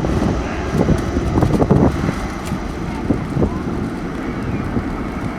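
Gusty wind buffeting the microphone, an uneven low rumble, with faint voices in the background.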